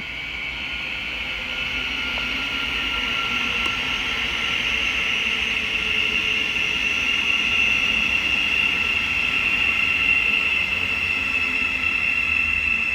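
Thameslink Class 700 electric multiple unit arriving and running slowly into the platform, with a steady high-pitched whine over its rumble. The sound grows louder through the first half and then holds.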